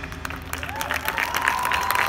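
Crowd applauding as the band's music stops, the clapping filling in about half a second in, with one long high whistle held from about a second in.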